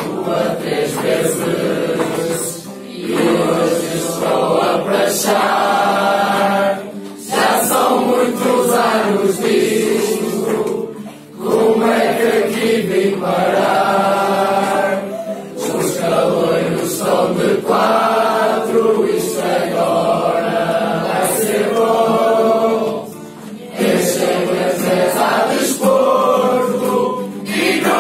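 A large mixed group of young men and women singing together to an acoustic guitar, in phrases of a few seconds with short breaks between them.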